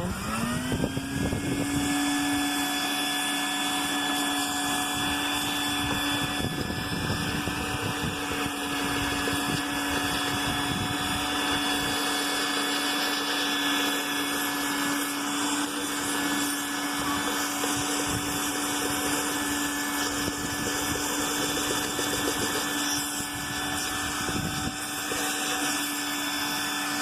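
Vacuum cleaner motor switched on, spinning up to a steady whine and running, then switched off near the end and winding down. It is sucking metal shavings out of a two-stroke engine through a pen taped into its nozzle.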